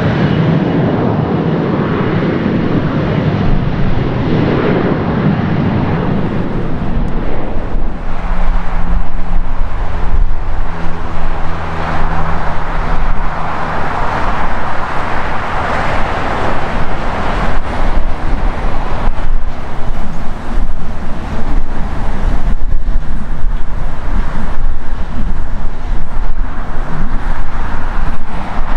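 Airbus A350-900's Rolls-Royce Trent XWB engines running loud during the landing rollout, easing off after about six seconds. After that comes a steady rumble of airport and road traffic, with a vehicle engine humming for a few seconds and gusts of wind on the microphone.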